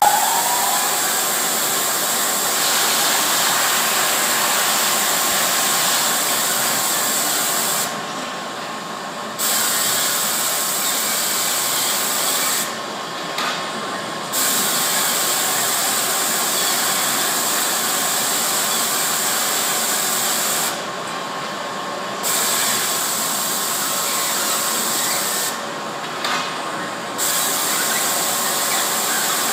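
RIMAC R 242 automatic quilt binding machine running: a steady machine whirr and hiss from its sewing head and feed. The hiss drops away briefly four times.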